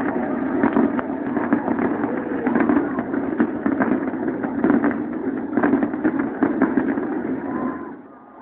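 Fireworks going off in a rapid, irregular volley of bangs and crackles over a steady murmur of a large crowd; the bangs die away about eight seconds in.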